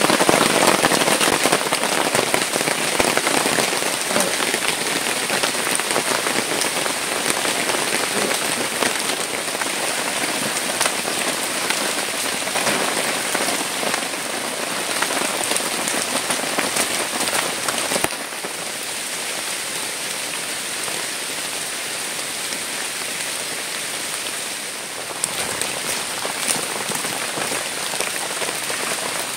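Heavy rain falling steadily on plastic tarpaulin shelters: a dense, even hiss with fine patter of drops. It drops a little quieter about two-thirds of the way through.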